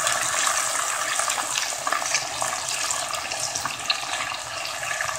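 Chicken stock pouring into a cast iron pot of vegetables frying in hot oil: a steady splashing, sizzling hiss that gets gradually quieter.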